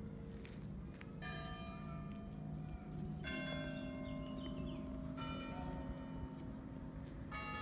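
A bell rung four times, about two seconds apart, each stroke ringing on into the next.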